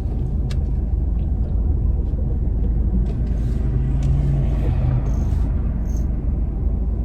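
Steady low rumble of a car's engine and road noise heard from inside the cabin, with a brief low hum about four seconds in.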